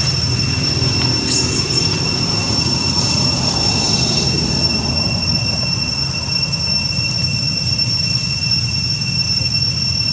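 Steady, unbroken high-pitched insect drone, cicadas, over a low background rumble.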